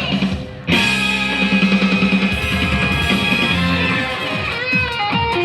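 Instrumental stretch of an upbeat show song between sung lines, with guitar. The music dips briefly about half a second in, then comes back in full.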